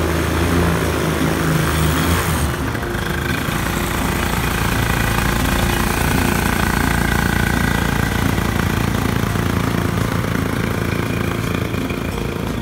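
Zigolo ultralight aircraft's small engine and propeller running steadily on the ground, its tone shifting about two and a half seconds in.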